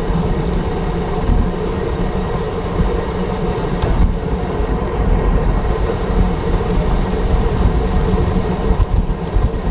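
Steady wind rumble on the microphone of a moving bicycle, mixed with tyre and road noise.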